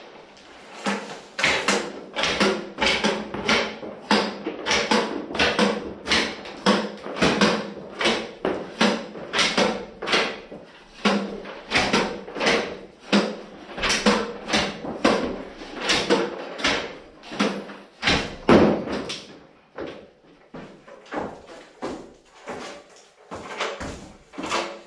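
Repeated short knocks or steps, about one and a half a second in an even rhythm, growing fainter and sparser near the end.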